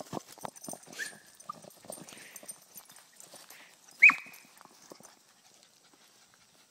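Small dog scuffling with a ball on dry leaves and grass, with brief high yips; the loudest, about four seconds in, is a short yelp falling in pitch.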